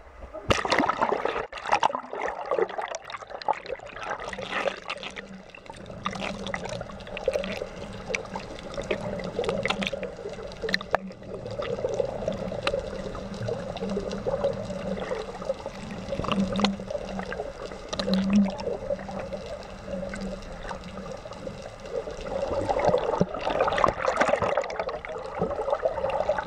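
Seawater sloshing, splashing and bubbling around a camera held at the surface and dipped just under it, with irregular surges and small clicks. A faint steady low hum runs under the water noise for most of the time and fades out a few seconds before the end.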